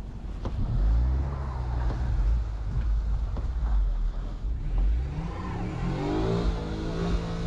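Van engine running hard as the driver tries to drive forward out of deep snow, revving higher about six seconds in; the van is stuck.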